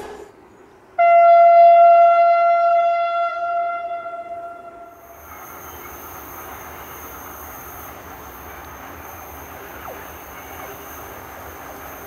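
Train horn sounding one long, steady single note that starts suddenly about a second in and fades out about four seconds later. After it comes a steady hiss and hum with a thin, high, steady whine.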